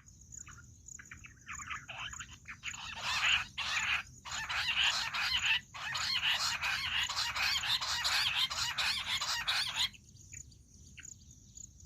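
Bush quail calling: a dense run of rapid, chattering chirps that builds and grows louder, then stops suddenly about ten seconds in, followed by two single short calls.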